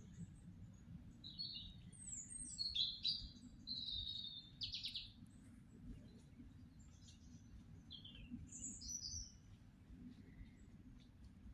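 A small songbird singing a short phrase of quick high chirps ending in a brief trill, then two more high notes a few seconds later, over a steady low rumble.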